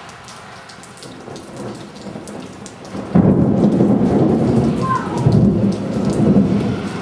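Steady heavy rain with thunder: a low rumble builds from about a second in, then a loud close clap breaks about three seconds in and keeps rumbling through the rest.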